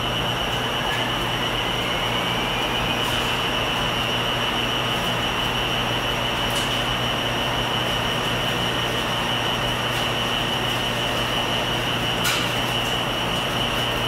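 Laundromat ambience: a steady mechanical din of machines running, with a constant high whine and a low hum, and a few faint clicks.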